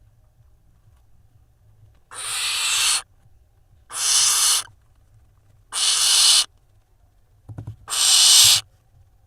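Barn owl nestling giving four harsh hissing calls, each just under a second long, about two seconds apart.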